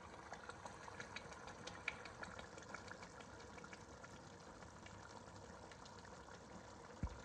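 Faint crackling and bubbling of liquid, with many small irregular ticks, and one low thump near the end.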